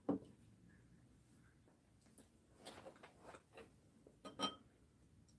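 A spoon clinking faintly against ceramic bowls at the table, a few light taps with one sharper, briefly ringing clink about four seconds in.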